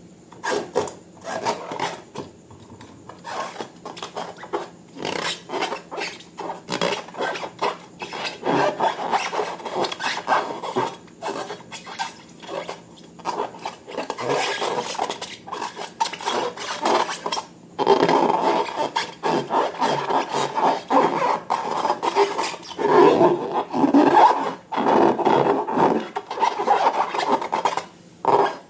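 Slime being worked by hand: an irregular run of short rubbing, squishing strokes, a few a second, louder in the second half.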